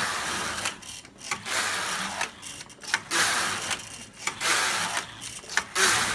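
Carriage of a hand-operated V-bed flat knitting machine pushed back and forth across the needle beds, knitting rows. It makes a mechanical rattle on each pass, about four passes of roughly a second each with short pauses at the turns.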